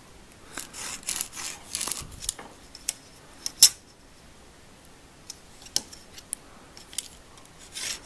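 Marking pen scratching along a steel ruler as slot lines are drawn on leather, with rubbing as the ruler and leather are shifted and a few sharp clicks and taps, the loudest a little past halfway.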